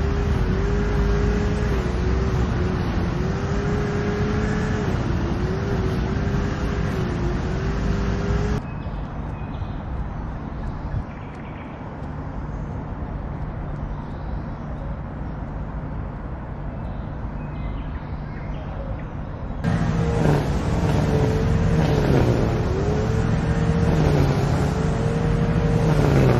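Road traffic noise: a steady hum of passing vehicles, with an engine note that wavers up and down in the first and last stretches. It drops abruptly to a quieter traffic hum about nine seconds in and comes back louder at about twenty seconds.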